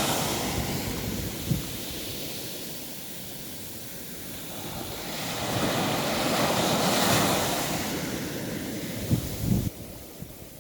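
Sea waves washing ashore, one swelling in and surging near the middle, then drawing back, with wind buffeting the microphone in a few low thumps.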